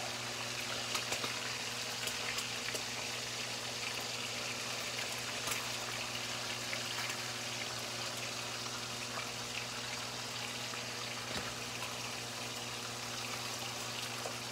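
Bacon sizzling steadily in a frying pan, with faint scattered crackles and a steady low hum underneath.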